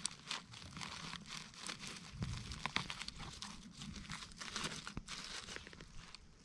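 Needle and leaf litter crackling and rustling under a hand as a young porcini (king bolete) is worked loose and pulled from the forest floor: a run of quick small crackles, loudest about two to three seconds in.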